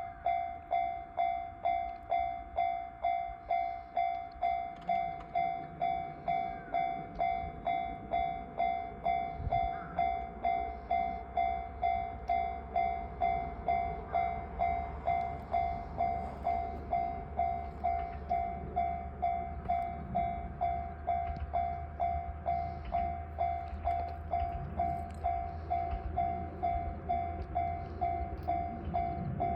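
Railway level-crossing warning bell starting up suddenly and ringing steadily at about two strokes a second, the signal that a train is approaching. A train's low rumble builds beneath the bell from about ten seconds in.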